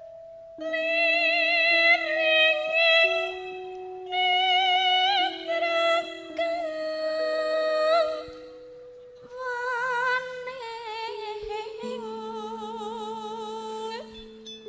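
A woman singing a slow Javanese vocal line into a microphone over a sound system, long held notes with wide vibrato in several phrases, over steady held accompanying notes.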